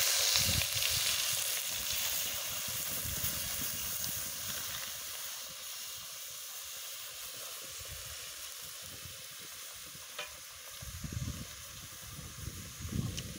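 Raw pork pieces and pig's blood sizzling in a hot, dry aluminium pan over a wood fire, the sizzle slowly dying down as the blood cools the pan. A knife stirs the meat now and then.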